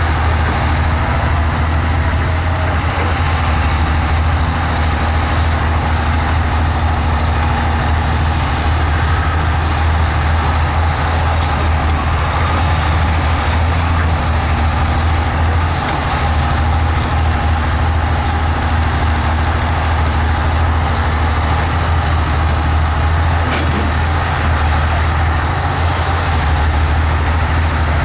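Diesel engine of heavy earthmoving equipment (bulldozer or excavator) running steadily with a deep, even drone, briefly dipping about sixteen seconds in.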